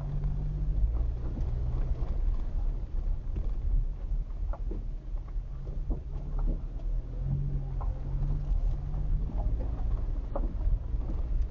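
Inside a vehicle driving slowly on a rough dirt road: a steady low rumble of engine and tyres, with an engine hum that swells and fades, and scattered small knocks and rattles from the bumps.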